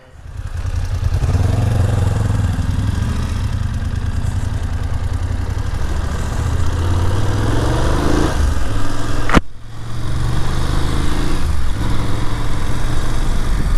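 BMW F750GS motorcycle's parallel-twin engine pulling away and running along a gravel road, with wind rushing over the microphone. The engine note climbs and then drops back around eight to nine seconds in, as at a gear change.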